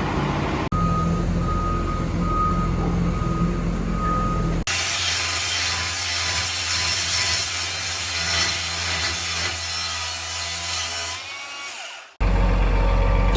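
Diesel farm machinery engines running steadily, heard in a few short clips cut one after another. In the longest clip a loud rushing noise lies over the engine.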